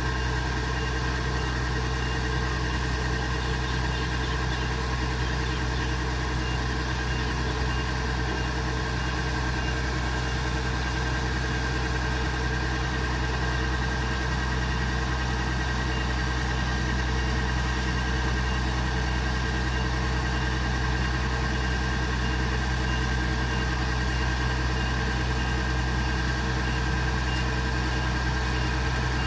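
Kubota DC70 Pro combine harvester's diesel engine and machinery running steadily. A low drone carries a constant high whine that holds unchanged throughout.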